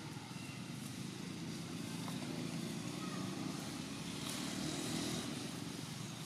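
Low, steady rumble of a passing motor vehicle's engine, building to its loudest about five seconds in and then easing off.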